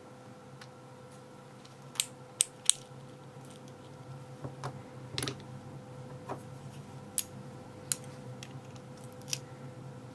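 Small sharp metallic clicks and taps, scattered singly and in quick groups, as a 5-pin lock cylinder is taken apart with a plug follower pushed in to draw out the plug. A steady faint hum runs behind.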